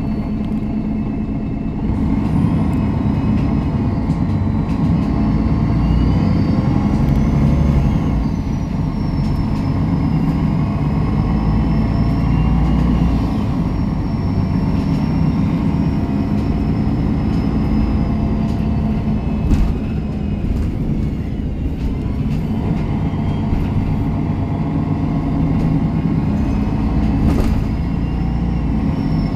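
MAN NG 313 articulated city bus's diesel engine and drivetrain heard from inside while driving. The engine gets louder about two seconds in and eases off for a moment about two-thirds of the way through, under a faint high whine and a single knock near the middle.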